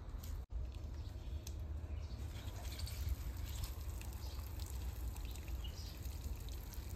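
Outdoor ambience: scattered faint bird chirps over a steady low rumble, with a brief break about half a second in.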